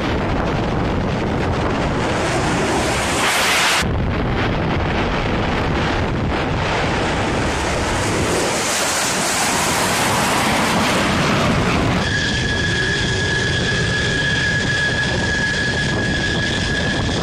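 Fighter jet engines on takeoff and climb-out: a loud rushing jet roar, of an F-22 Raptor's engines, with abrupt cuts about 4 s and 12 s in. From about 12 s in, a steady high-pitched jet engine whine over the roar, from an F-16 on the runway.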